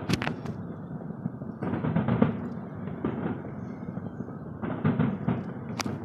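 Fireworks going off: a sharp bang at the start and another near the end, with stretches of dense rapid crackling between them.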